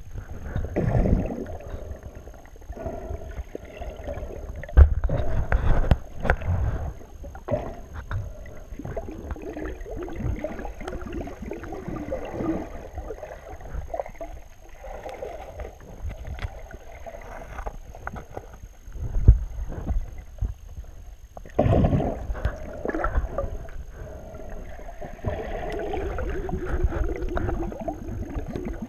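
Muffled underwater sound heard through a GoPro's waterproof housing: water sloshing and gurgling, with irregular knocks and thumps, the loudest about five and nineteen seconds in.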